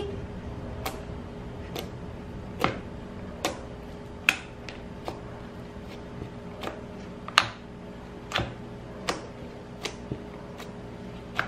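Fingertips poking and pressing into a tub of homemade toothpaste-and-shampoo slime. The slime gives sharp little clicks, more than a dozen, irregularly spaced about once a second.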